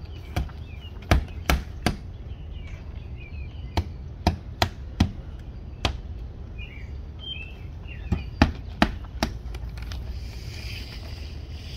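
Hand hammer driving nails into vinyl siding, sharp strikes in quick groups of three or four, with a pause between groups. Birds chirp faintly in the background.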